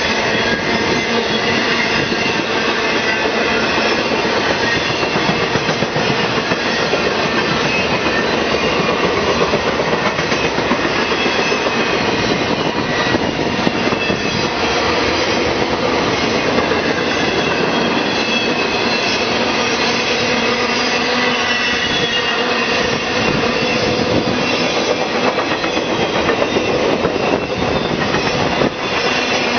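Intermodal freight train cars rolling past at track speed: a steady loud rumble and rattle of steel wheels on rail, with thin high ringing tones over it.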